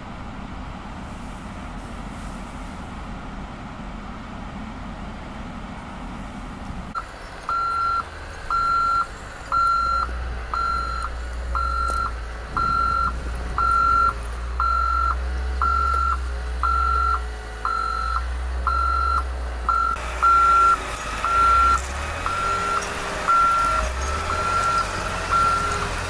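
A heavy-equipment reversing alarm beeping steadily, a bit faster than once a second, over the low rumble of a wheel loader's engine as the loader backs up in deep snow. The beeping starts about seven seconds in, after a stretch of steady rushing noise.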